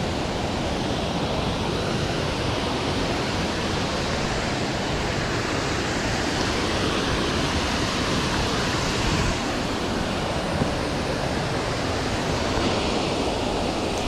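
Waterfall: a loud, steady rush of falling water, with no breaks or changes.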